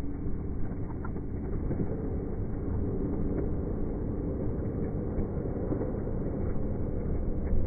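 Steady, muffled low rumble of wind and ocean surf, with the higher sounds cut off.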